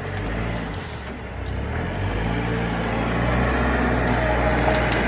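A vehicle engine running with a low, steady note, getting louder from about two seconds in as it is worked harder.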